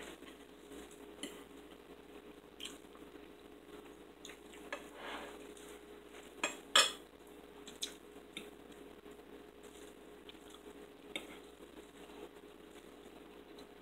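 Forks clinking and scraping against dinner plates while eating. The clinks are short and scattered, coming every second or so, and the loudest is about seven seconds in.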